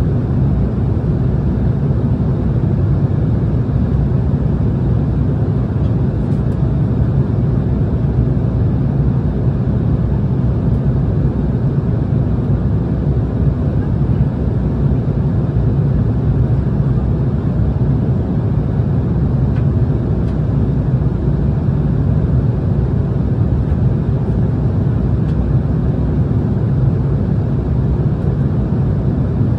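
Steady cabin noise of an Embraer E170 jetliner in flight, heard from inside at a window seat: an even, unchanging drone of its turbofan engines and the airflow, heaviest in the low range.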